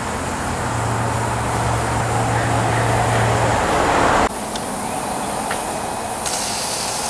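Steam safety (pop-off) valve on a coal-fired vertical fire-tube boiler blowing off with a loud, steady hiss, then cutting off suddenly about four seconds in as it reseats, leaving a fainter hiss. The valve is lifting at about 140 psi although it is set at 125, which the owner calls fine.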